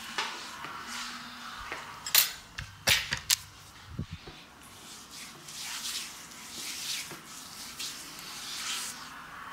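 A few sharp clicks and taps about two to three seconds in, then soft swishing friction of hands rubbing cream, palm against palm and over the skin of the face.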